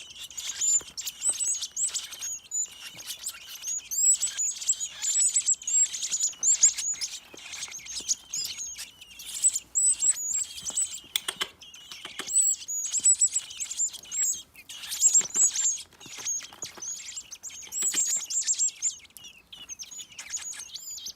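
Baby birds chirping rapidly and excitedly in high, shrill peeps, over and over, as nestlings begging while being hand-fed.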